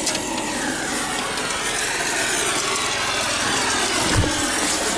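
An engine running steadily, with a broad hiss over it.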